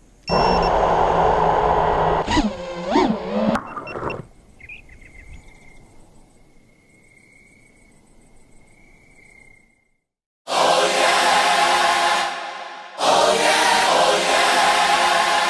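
A loud rushing noise with sliding tones for about four seconds, then a faint steady high insect-like trill for about five seconds, then choral music starting loudly about ten and a half seconds in.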